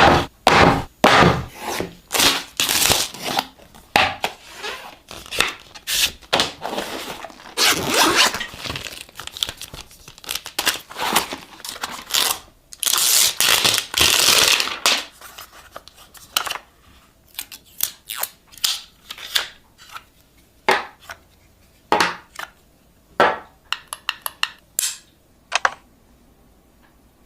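Unboxing a wireless microphone kit: packaging tearing, crinkling and scraping, loudest in bursts around the middle. Later come short sharp clicks and taps as parts are handled.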